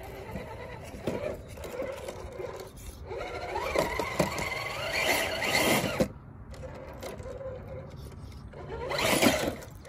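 An RC rock crawler's electric motor and geared drivetrain whining as it crawls up a rock ledge. The pitch rises and falls with the throttle, and it gets louder about four to six seconds in and again near the end.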